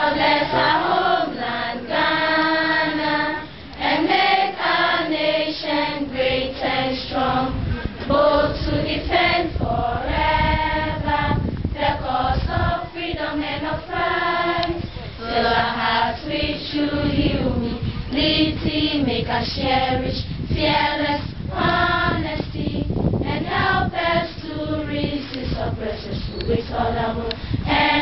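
A large group of schoolgirls singing together in unison with no instruments, a steady melodic line of held notes.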